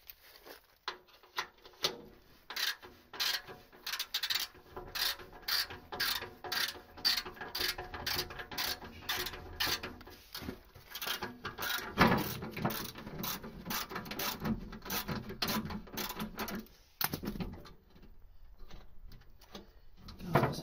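Hand socket ratchet clicking as it undoes an underbody tray bolt, a steady run of clicks about two a second that thins out later, with one louder knock about twelve seconds in.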